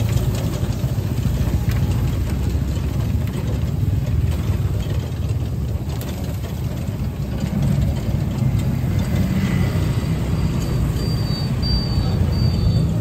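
Steady rumble of road traffic, with motorbike and bus engines passing.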